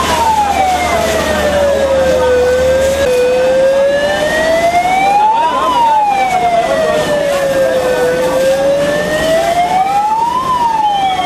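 Fire truck siren wailing in slow sweeps, its pitch falling and rising again and peaking about every five seconds, over a steady rushing background noise.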